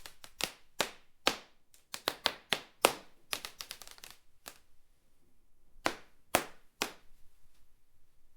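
Wooden floorboards cracking: a run of sharp, irregular cracks and snaps, densest in the first four seconds, then a few louder single cracks around six to seven seconds in.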